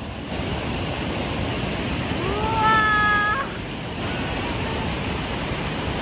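Steady rushing roar of Niagara's Bridal Veil Falls crashing close by, with water pouring across the wooden deck. About two seconds in, a high, drawn-out voice cry rises and holds for about a second.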